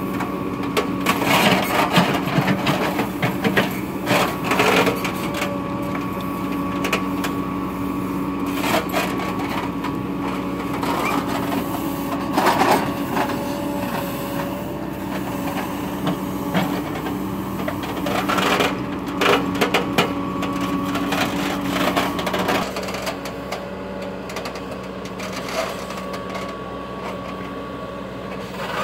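Caterpillar 428F backhoe loader's diesel engine running steadily under hydraulic load, with a constant whine and repeated clanks and scrapes from the bucket digging earth and stones in a trench. One engine tone drops out about two-thirds of the way in, and the machine goes a little quieter.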